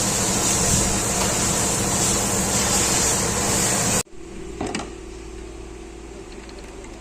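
Ford Excursion engine running steadily with a strong high hiss, on fuel pressure far below spec from a failing fuel pump. About four seconds in the sound cuts off abruptly to a much quieter steady hum, with a brief knock shortly after.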